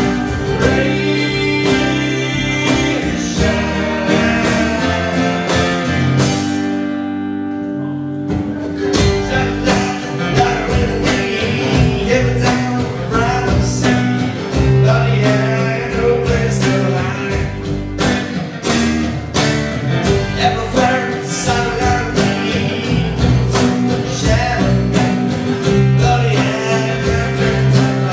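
A band playing an instrumental break in a country-rock song, led by guitar. The last sung word of the chorus is held over the first few seconds, the sound thins out briefly about seven seconds in, and then the full band comes back with a steady beat under a bending lead guitar line.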